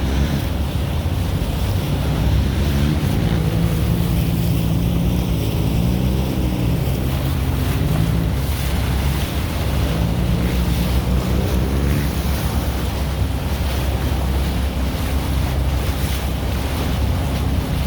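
Heavy wind rumbling on the microphone over a vehicle engine whose pitch rises and falls for the first dozen seconds before fading into the wind noise.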